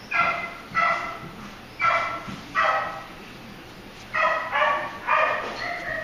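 A dog barking repeatedly: about eight short barks in groups of two and three.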